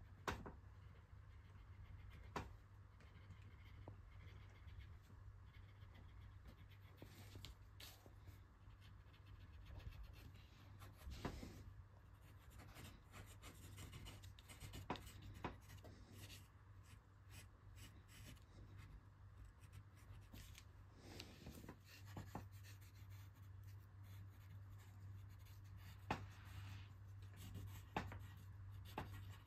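Faint scratching of a pencil on paper in sketching strokes, with a few sharp light clicks and a low steady hum underneath.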